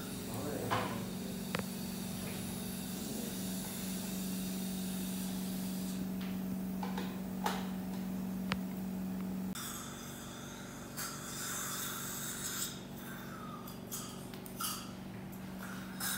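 A dental unit's steady motor hum, which cuts off about nine and a half seconds in. Then comes intermittent hissing at the patient's mouth and a few light clicks of metal instruments.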